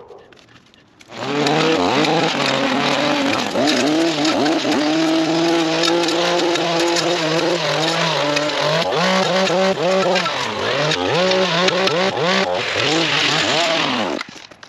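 A gas string trimmer's small engine starts about a second in and runs at high speed with a steady pitch. Near the end its throttle is blipped several times, rising and falling, and it shuts off abruptly just before the end.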